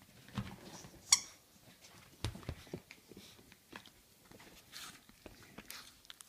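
Yorkshire terrier biting and shaking a rubber bird toy, with scattered soft knocks and rustles. One short high squeak about a second in.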